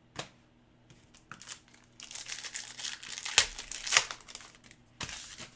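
Crinkling and crumpling of a hockey-card pack wrapper being handled, a dense crackle in the middle with two sharp louder crackles, then one more short crackle near the end.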